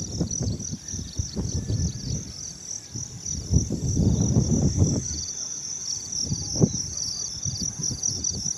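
Wind gusting against the microphone in irregular low rumbles, strongest about halfway through. Under it, a steady high chorus of insects chirping in rapid regular pulses.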